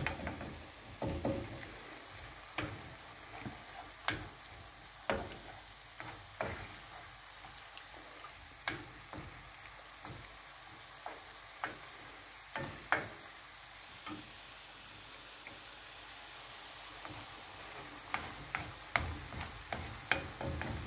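Mushrooms sizzling in a frying pan as they are deglazed with port, while a wooden spatula stirs them and scrapes the bottom of the pan, knocking against it about every second or two.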